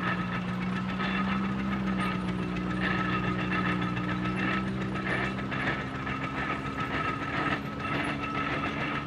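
International Harvester Titan 10-20 tractor running as it drives on its steel wheels: a steady engine drone with an irregular mechanical clatter of gears over it.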